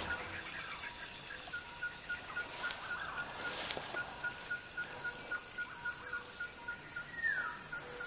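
Tropical forest ambience: a steady high insect drone, a regular pipping call repeated about three times a second, and a bird's single short falling whistle about seven seconds in.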